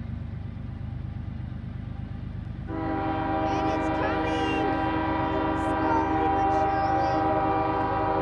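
Approaching locomotive's air horn sounding one long, steady blast of several notes together, starting about a third of the way in, over a low rumble.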